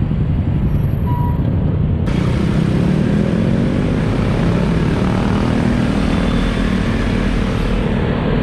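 City traffic noise dominated by motorcycle and scooter engines, with an engine note rising a few seconds in as the traffic pulls away. Heavy wind rumble on the microphone runs underneath.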